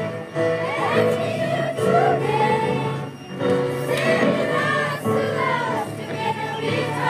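A choir of schoolchildren singing a song together, holding long notes.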